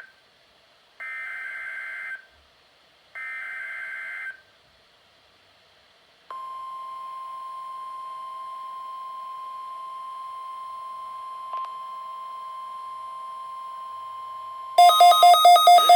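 Two roughly one-second bursts of the warbling digital data of a NOAA Weather Radio SAME alert header, a pause, then the steady single-pitched 1050 Hz Weather Radio alert tone held for about eight seconds: the signalling of a Required Weekly Test. Near the end a much louder, rapidly pulsing beep cuts in.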